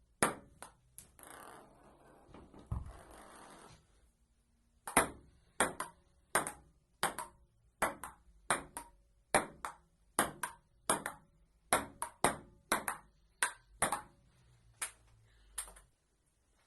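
Table tennis ball clicking off paddles and the table in an amateur rally, sharp ticks about two a second. The rally breaks off after about a second, with a soft rustling noise for a few seconds. It starts up again about five seconds in and stops shortly before the end.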